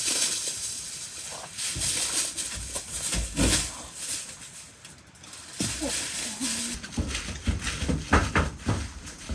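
Aluminium foil crinkling and rustling as it is pulled from the roll and pressed down over a tandoor oven's lid, in uneven spells of crackling with a few soft thuds, quieter for a moment around the middle.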